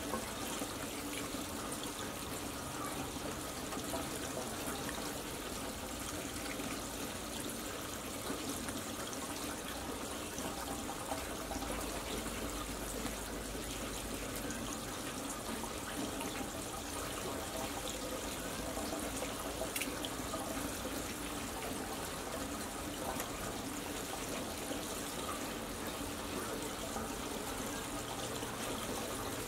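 Steady trickle of running water, with faint scattered clicks.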